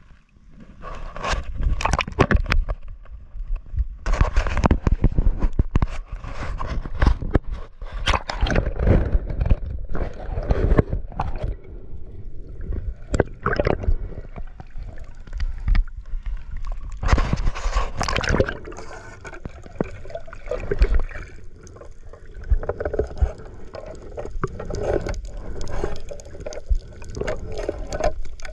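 Water sloshing and gurgling against the camera as a diver swims and moves underwater, in irregular surges of splashing and bubbling with a low rumble.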